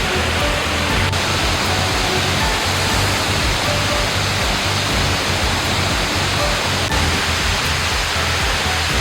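Waterfall rushing, a steady loud wash of falling water, with soft background music with short melodic notes mixed underneath.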